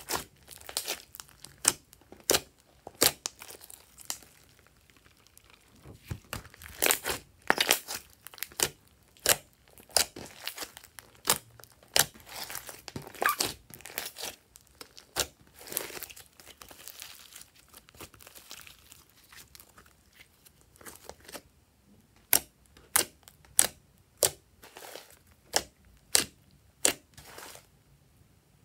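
Thick slime being kneaded and squeezed by hand, giving sharp, irregular pops and clicks that come in clusters, with a quieter stretch about two-thirds through.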